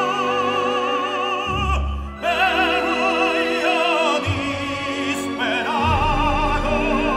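Operatic singing over orchestral accompaniment: a solo voice with wide vibrato holding long notes, breaking off briefly about two seconds in.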